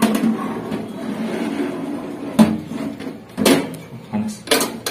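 Metal baking tray scraping along the rack as it is slid into a countertop electric toaster oven, followed by several sharp knocks and clacks as the tray seats and the oven's glass door is shut.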